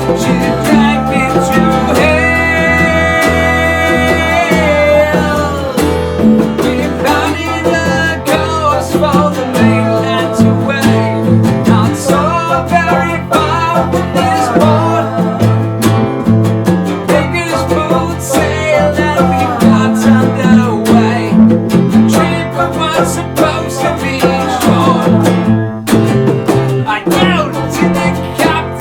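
A band playing rock music, with guitar prominent and a held, wavering melody line for a few seconds near the start.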